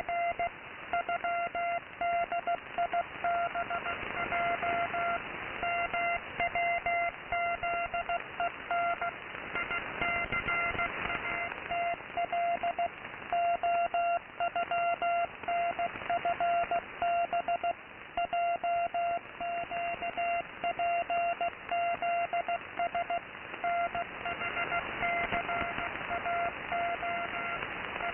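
Morse code from a shortwave station on 15750 kHz, received in AM mode: a steady-pitched tone keyed rapidly on and off in dots and dashes, spelling out an English greeting. Underneath is a constant shortwave static hiss that swells and fades a few times.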